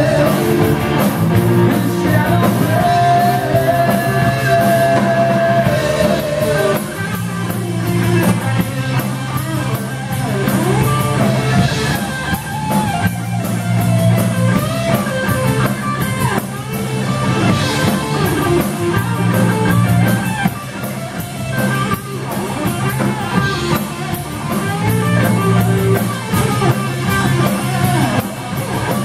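Live rock band playing: electric guitar, bass and drum kit, with a man singing lead.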